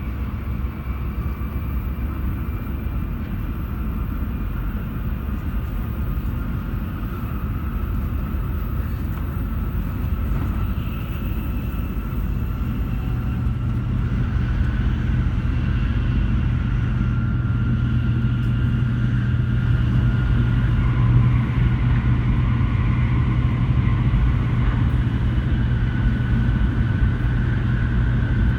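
Shinkansen bullet train running: a steady low rumble with a faint whine that slowly rises in pitch, growing a little louder over the stretch.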